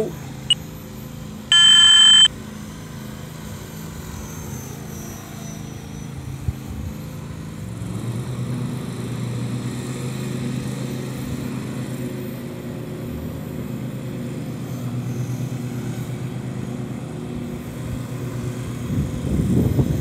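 Walkera V450D03 electric RC helicopter's rotor and motor heard from a distance as a steady low drone, growing louder about eight seconds in. A loud electronic beep lasting under a second comes about two seconds in.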